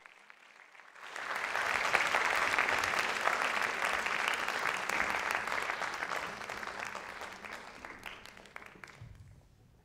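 Audience applauding: after about a second of quiet the clapping starts, is loudest a second or two later, then slowly dies away near the end.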